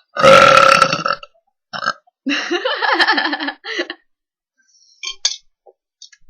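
Loud, drawn-out burps from a young woman after chugging a drink: one about a second long right at the start, then another of over a second in the middle, with faint short sounds near the end.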